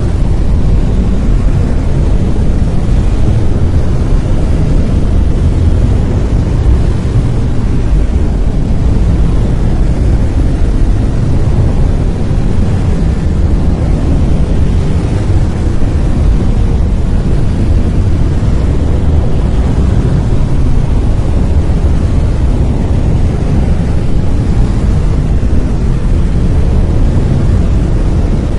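Brown noise: a steady, even rush with its weight in the low end, unchanging throughout.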